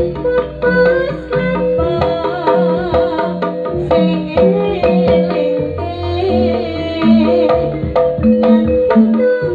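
Live Javanese jaranan (kuda lumping) gamelan ensemble playing: hand drums beat a busy rhythm under a held, wavering melody line, and a low gong note comes in about six seconds in.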